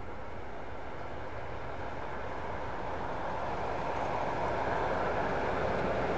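Diesel locomotive engine working, a low throbbing beat under a rushing noise that grows steadily louder.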